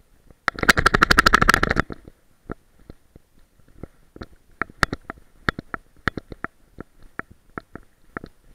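Dog-back action camera mount rattling in a fast, loud run of clicks for about a second, then knocking irregularly as a Boston Terrier moves about carrying a chew stick.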